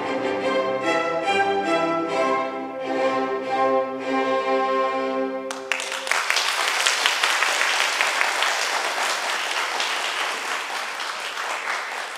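Closing held chords of an aria's instrumental accompaniment. They stop about five and a half seconds in, when an audience breaks into applause and keeps clapping steadily.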